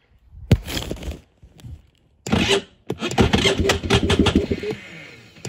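Electric starter cranking the freshly rebuilt two-stroke single of a Beta RR 300 enduro bike on its first start attempt. There is a short burst of cranking about half a second in, then a longer, louder run of irregular knocks from just past two seconds that stops near the end.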